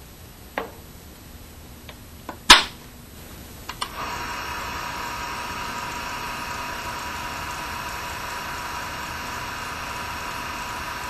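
A few sharp clicks, the loudest about two and a half seconds in, then about four seconds in a disc scratch-repair machine starts and runs with a steady whine as it resurfaces a scratched disc.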